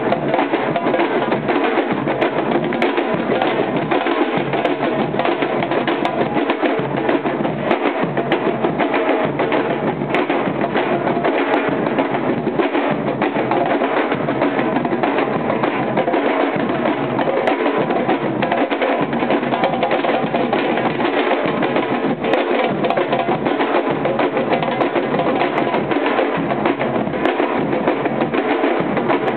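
Batucada samba percussion group playing together without a break: many strapped drums beaten with sticks and hands in a steady, dense rhythm.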